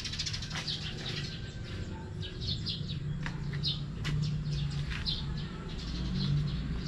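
Small birds chirping in short, quick repeated notes, over a low steady hum.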